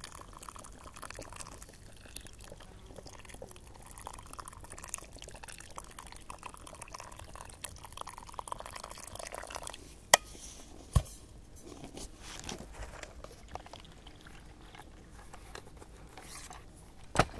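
Boiled water poured from a stainless steel thermos flask into a bowl of instant soup powder, a soft, uneven trickle for about ten seconds. Then three sharp clicks, two in quick succession about ten seconds in and one near the end.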